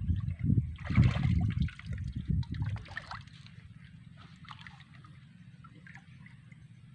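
Water splashing and sloshing in a shallow canal as a wader moves and grabs at fish, loud and irregular for the first three seconds, then dying down to a faint trickle.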